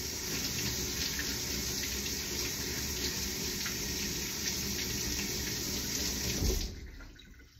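Kitchen tap running steadily into the sink, likely rinsing the gooey aloe gel off hands. It is shut off near the end.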